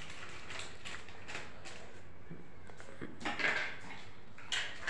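Quiet room noise with a couple of faint, brief sounds, one about three seconds in and another near the end.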